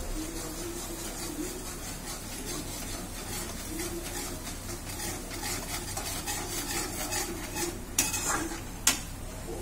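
Steel spoon stirring and scraping mustard masala paste around a kadhai, with a soft sizzle of the paste frying in oil. Two sharp clinks of the spoon against the pan near the end are the loudest sounds.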